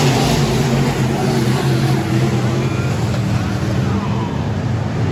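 Dirt-track race cars' engines running at speed in a pack on a dirt oval: a loud, steady engine drone whose pitch shifts slightly as cars pass.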